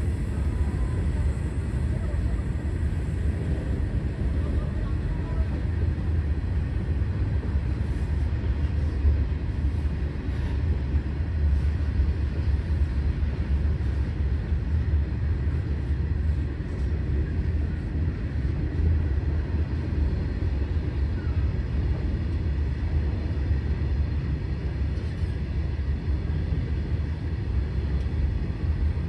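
Indian Railways goods train of BOXN open-top wagons rolling past: a steady low rumble of wheels on rail, with a few faint clicks partway through.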